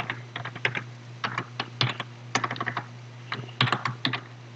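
Computer keyboard being typed on, quick irregular key clicks, over a steady low hum.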